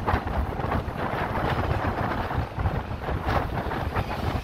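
Strong wind buffeting the microphone in uneven gusts.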